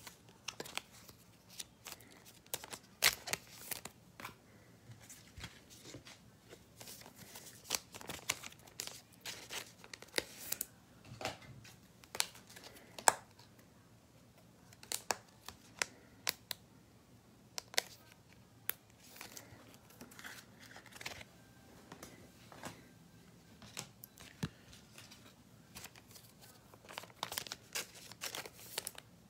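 Trading-card packaging being handled close up: plastic wrap crinkling and tearing in irregular rustles and sharp clicks.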